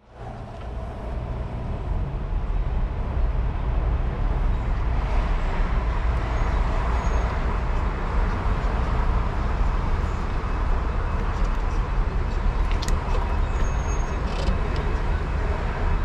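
Steady rumble and road noise of a moving road vehicle, building over the first few seconds and then holding even.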